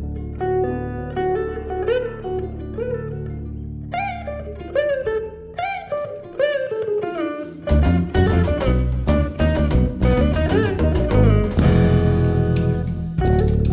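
Instrumental jazz-rock band music: a guitar plays single notes with bends over a held bass note. About halfway through the drums and cymbals come in and the full band plays louder.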